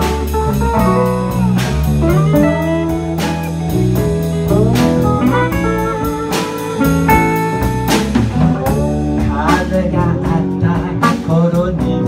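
Live band playing a slow blues: electric guitar lead with bent notes over strummed acoustic guitar and ukulele, with a steady low accompaniment and sharp strummed accents.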